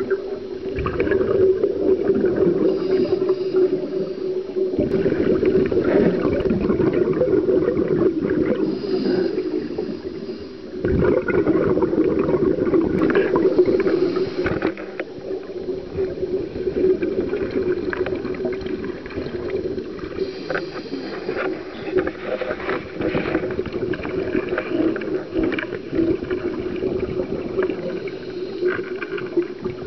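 Scuba breathing heard underwater through a sealed camera housing: regulator breaths and exhaled bubbles, muffled and steady, with louder stretches of bubbling and crackling.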